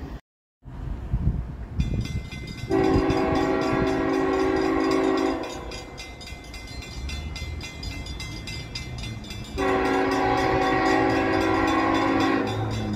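Approaching train sounding its air horn in two long blasts of about three seconds each, several tones sounding together. The first blast comes about three seconds in, the second about ten seconds in, with a low rumble in between.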